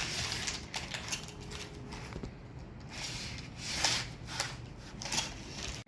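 Irregular rustling and scraping as exhaust parts and clamps are handled, in several short swells with no steady machine sound.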